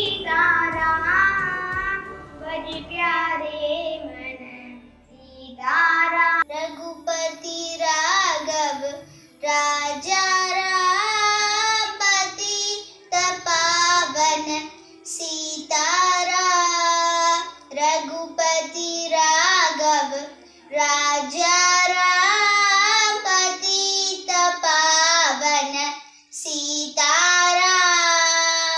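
A child singing solo, with long held, wavering notes and short breaks between phrases.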